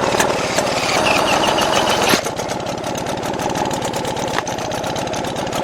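British Seagull two-stroke outboard motor running with a fast, even beat of firing strokes. About two seconds in, an added whine cuts off sharply and the engine runs on by itself, ticking over below full throttle.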